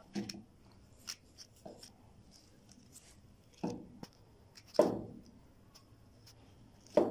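Scattered knocks and clicks from handling the dismantled ceiling fan motor's stator and shaft: a few light taps, then two louder knocks about five seconds in and near the end.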